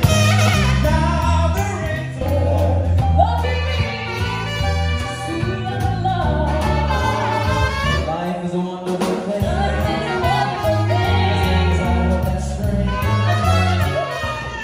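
A live band playing a song with singers, over drums and a stepping bass line.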